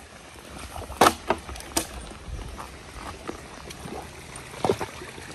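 Horses drinking at a stream: water sloshing and splashing, with a few sharp splashes, the loudest about a second in.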